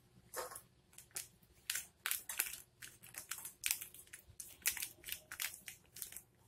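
Plastic packet crinkling in many short, irregular crackles as it is squeezed and shaken to tip powder into a steel bowl.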